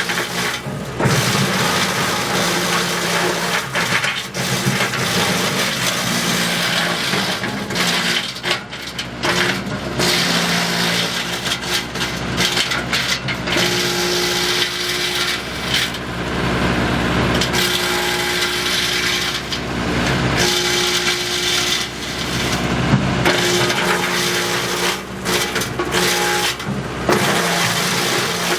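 Wood chipper running steadily while chipping branches, with irregular cracking and crunching as the wood is fed through and shredded.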